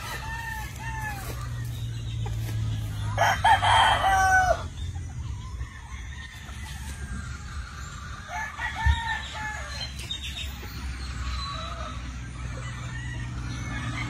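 Chickens clucking in short calls that rise and fall, with a rooster crowing once about three seconds in, the loudest sound.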